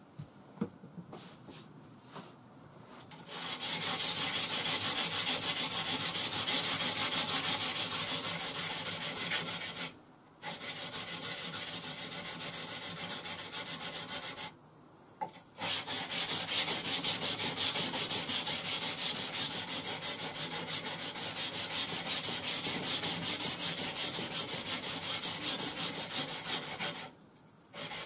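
Puukko knife's zero scandi grind bevel stroked back and forth on a wetted, worn abrasive grinder belt: a steady scraping rasp. It starts about three seconds in and comes in three long runs, with two brief pauses and a stop near the end. A few light clicks come before it starts.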